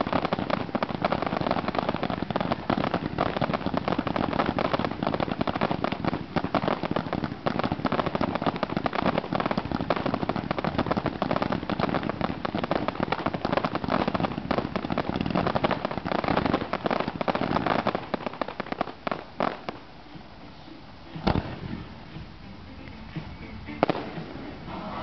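Fireworks cakes firing a dense, continuous barrage of shots, bursts and crackle. About three-quarters of the way through the barrage thins out, leaving a single sharp bang and then a few scattered shots near the end.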